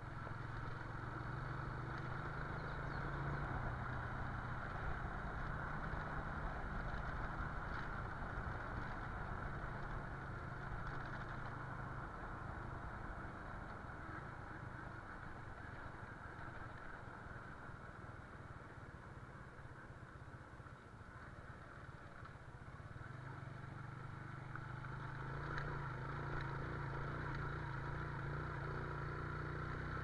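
Motorcycle engine running as the bike is ridden along, a steady low hum under road noise. Around the middle it eases off and grows quieter, then picks up and gets louder again near the end.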